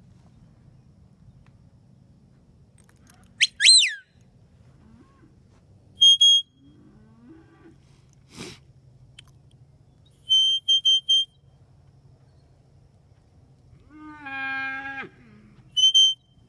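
Whistled herding commands to a stock dog: a sharp falling whistle, one held blast, a run of four short pips and then two more short pips. A cow bawls once, about a second before the end.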